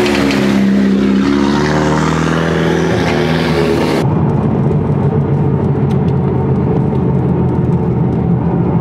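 A car engine revving up and down as a car drives off, its pitch rising and falling. About four seconds in the sound switches abruptly to a steady, muffled engine drone, as heard from inside a moving car's cabin.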